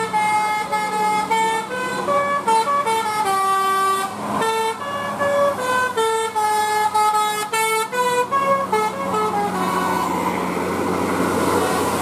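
A bus's telolet multi-tone air horn playing a fast tune of stepped notes, stopping about nine and a half seconds in and leaving steady vehicle engine and road noise.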